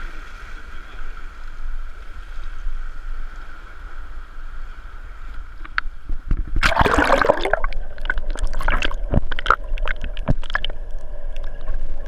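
Sea surf washing steadily around an action camera, then from about halfway loud splashing and gurgling as the camera is plunged into the waves and goes under the surface.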